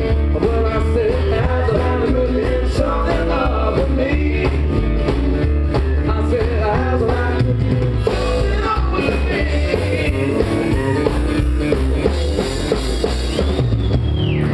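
Live country rock band playing: upright double bass and drum kit with a sung vocal.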